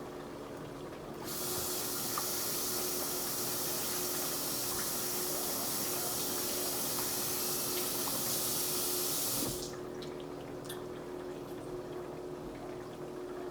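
Kitchen tap turned on, water running into the sink for about eight seconds and then shut off, over a faint steady hum.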